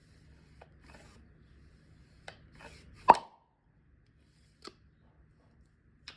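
A single sharp pop about three seconds in, the loudest sound here, with a few fainter clicks and a little rustling around it.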